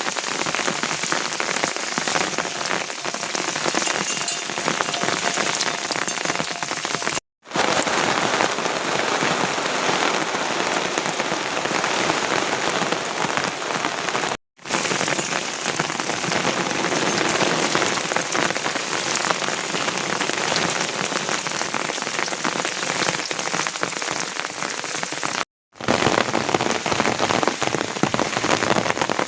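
Steady heavy rain falling and pattering on surfaces, cut by three brief moments of silence: near a quarter of the way in, about halfway, and again near the end.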